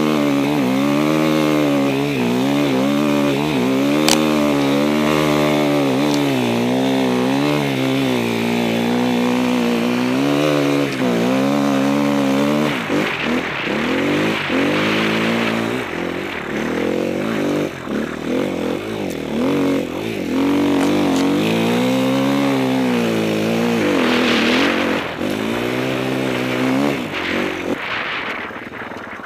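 Enduro motorcycle engine running under way, its pitch rising and falling with the throttle. About halfway through the note breaks up into rougher, uneven noise before it picks up again, and it gets quieter near the end.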